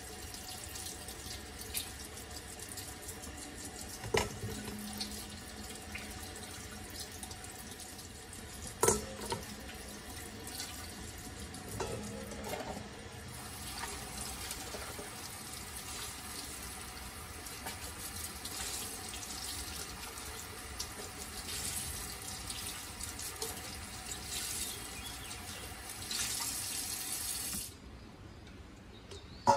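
Kitchen faucet running into a sink while a drinking glass is rinsed under the stream, with a few sharp knocks along the way. The running water stops near the end.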